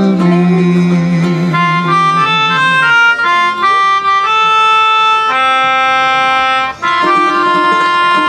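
Melodica playing a slow melody of held notes over ukulele strumming. One long note sounds in the middle, followed by a brief break and a few more notes.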